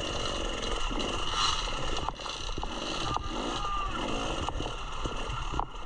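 Dirt bike engine running and revving as the bike picks its way up a rocky creek bed, with several sharp knocks as the wheels and suspension strike the rocks.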